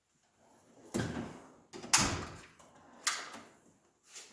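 Steel drawers of a US General tool chest sliding on their runners and banging to a stop, four metal clunks in all, the loudest about two seconds in.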